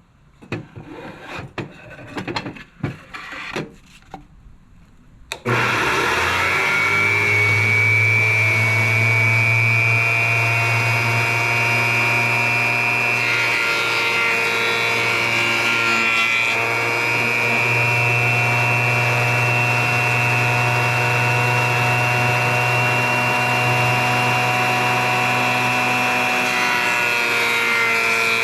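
Benchtop jointer switched on after a few seconds of faint knocks and handling, then running steadily with a strong hum while a cedar board's edge is passed over the cutterhead, planing it flat and square and taking off the old stain.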